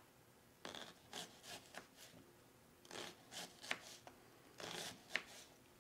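Knife slicing a peeled sweet Vidalia onion half thin on a plastic cutting board: a quiet, irregular run of short, crisp cuts, several a second at times, with small pauses between runs.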